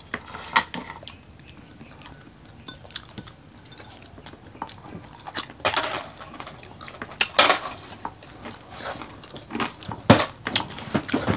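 Mukbang eating sounds: chewing and biting into crispy lechon kawali pork belly, with scattered sharp clicks and clatter of dishes, louder about half a second in, near six and seven and a half seconds and near ten seconds.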